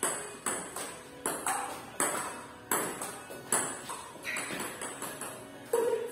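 Table tennis rally: the ping-pong ball clicking off the paddles and the table in an even rhythm, about one hit every 0.7 seconds, each click echoing in a bare, hard-walled room. There is a louder knock near the end.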